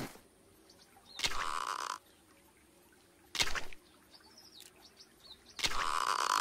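Cartoon sound effects: three short rushing sounds, about a second in, about three and a half seconds in, and again near the end, over faint bird chirps in the quiet between.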